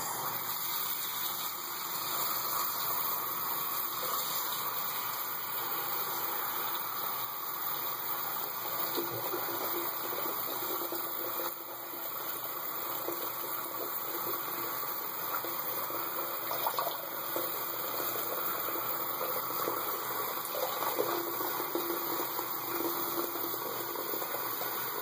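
Bathroom tap running steadily into the sink, water for rinsing the mouth after brushing teeth.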